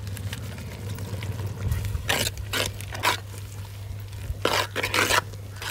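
Steel ladle stirring and scraping through a thick onion-tomato masala in a clay pot: several short scrapes from about two seconds in and a longer one near the end, over a steady low hum.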